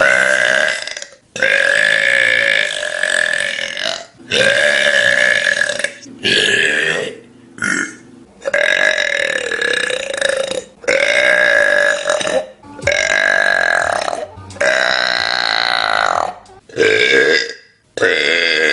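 A young woman burping: a run of about ten long, drawn-out belches, one after another with short breaks, each lasting one to three seconds.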